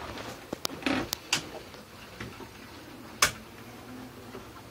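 Switches on a yacht engine-room switchboard clicking as the power supply is shut off: a few sharp clicks in the first second and a half, then one louder click about three seconds in, over a steady low hum.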